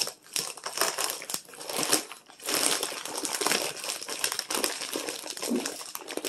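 Plastic bird-feed bags being handled and crinkling in irregular rustling spurts, with brief pauses.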